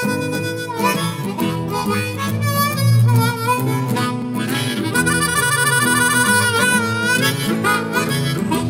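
Blues harmonica music playing, with a long warbling harmonica note held from about five to seven seconds in.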